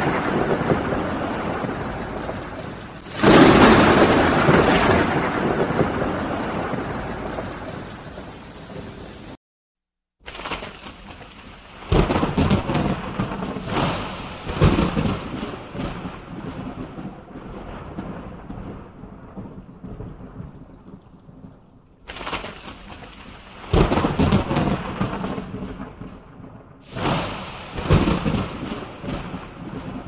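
Thunderstorm at night: a sharp thunderclap about three seconds in that rolls on and fades over several seconds, then several more cracks and rumbles later on, with rain hissing steadily between them. The sound cuts out completely for under a second about nine seconds in.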